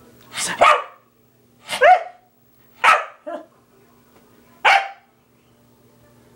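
Small black-and-tan dog barking about five times, roughly a second apart, looking up and barking at the person filming.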